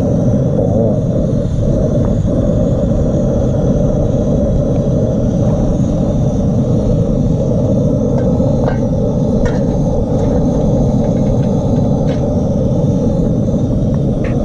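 Loud, steady low rumble with a few faint clicks scattered through it.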